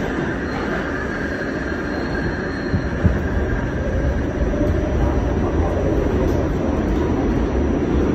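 Steady rumble and rattle of a New York City subway train running, heard from inside the car, with a faint high wheel whine in the first three seconds and a single knock about three seconds in.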